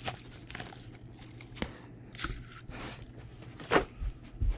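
Handling noise close to the microphone as a German Shepherd noses at the camera: scattered clicks and rustles, a longer rustle about two seconds in, and two low thumps near the end, the loudest sounds here.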